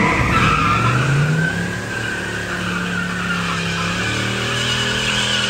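A car engine revving up over the first second or so and then held at steady high revs while the tyres squeal: a drag-strip burnout.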